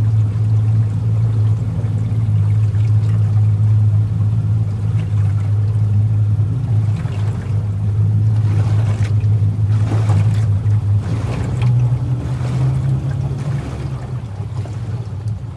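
Tiller-steered outboard motor on an aluminium tinny running at low revs while the boat moves slowly, a steady low hum. The note lifts slightly about twelve seconds in, with water splashing against the hull midway, and the engine sound drops away near the end.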